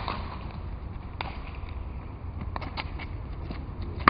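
Wooden grosse pala paddle striking the pelota ball with a sharp crack at the very end, after a similar crack at the start and a few fainter knocks of the ball between, over a steady low outdoor rumble.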